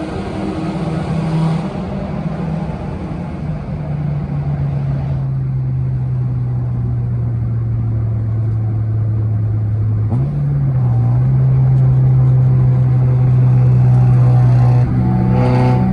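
Stock Honda K24A 2.4-litre inline-four engine running under load, a steady engine note that sags slowly, then picks up sharply about ten seconds in and climbs, getting louder toward the end.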